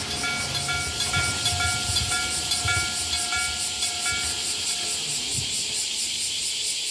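Electric-bell level crossing warning bell striking a repeated ding about twice a second, fading and stopping about five seconds in, over a steady high hiss.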